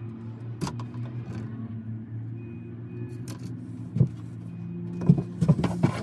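Steady low engine hum throughout, with light clicks and taps from hands handling fiber and a plastic splice tray on a work bench, a cluster of them near the end.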